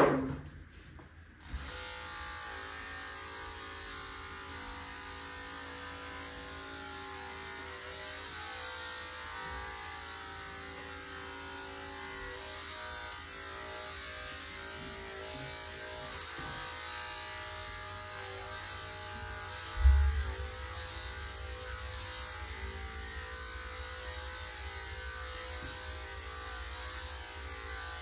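Electric dog grooming clippers switching on about a second and a half in, then running steadily through a cockapoo's coat. A short knock sounds at the very start, and a low thump about two-thirds of the way through.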